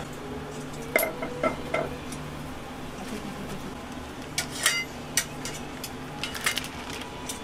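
Kitchen clatter of pots and utensils: a ringing clink and a few knocks about a second in, then a scatter of sharp clicks and clinks in the second half, over a steady low hum.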